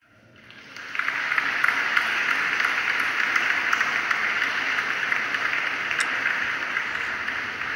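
Large audience applauding, swelling up over the first second and then tailing off slowly near the end.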